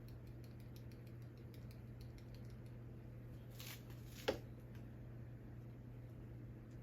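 Small parts and tools being handled at a workbench: faint scraping and light clicks, with a brief scrape and then one sharper click about four seconds in, over a steady low hum.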